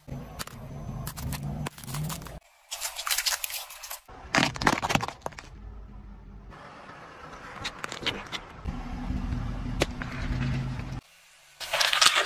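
Car tyre rolling slowly over small toys on asphalt, heard in several short cuts. A low rumble of tyre and engine runs under crackling and scraping, with loud sharp cracks of brittle plastic toys breaking about four to five seconds in and a loud crunch near the end.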